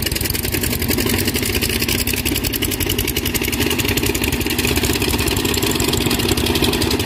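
Light dump truck's diesel engine running steadily at low revs as the truck creeps across muddy ground, with a rapid, even pulse.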